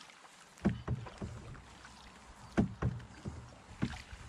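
Paddling a small boat on a river: the paddle dipping and splashing in the water, with a few sharp knocks spread unevenly through the strokes, the loudest about two and a half seconds in.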